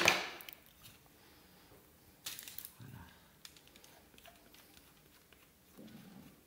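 Quiet kitchen handling noise: a sharp knock at the start, then soft rustles and light clicks as génoise sponge batter is scraped out of a glass mixing bowl with a spatula onto a parchment-lined baking tray.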